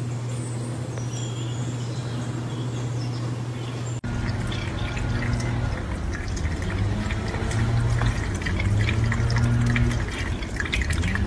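Water from a kitchen faucet splashing and dripping into a stainless steel sink while cats drink from the stream, starting suddenly about four seconds in. Before that, faint high chirps over a steady low hum.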